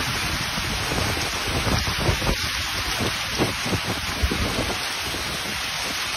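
Violent storm: heavy rain pelting down in a steady hiss, with strong wind gusting against the microphone in irregular low buffets.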